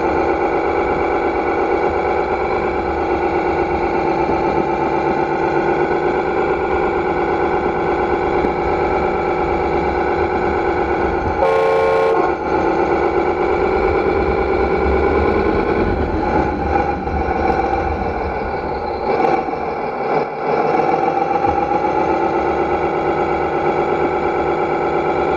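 Electronic sound module of a 1:7 scale radio-controlled 1950 Kenworth truck playing a diesel engine sound through its speaker, running steadily as the truck drives, with the engine note dipping and rising a few times in the second half. About halfway through comes one short tonal blast with a hiss.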